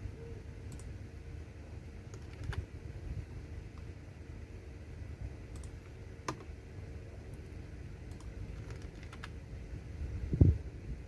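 Computer keyboard keys pressed one at a time with long pauses between them: a few scattered clicks, then a heavier, deeper key thump near the end.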